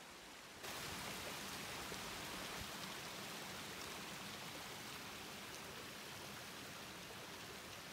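Mountain stream rushing over rocks, a steady hiss that sets in suddenly about half a second in and eases slightly toward the end.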